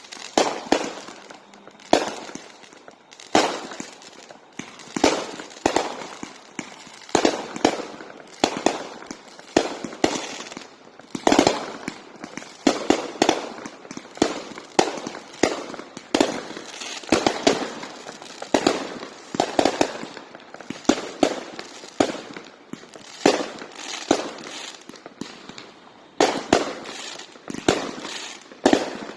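Consumer firework cakes (multi-shot barrages) firing a steady run of shots and bursts, about one or two bangs a second, some coming in quick clusters, each with a short echoing tail.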